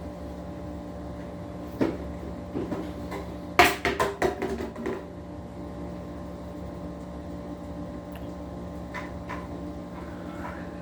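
Steady household appliance hum, with a single knock just under two seconds in and a quick run of clattering knocks around four seconds in, like a cupboard or door being bumped.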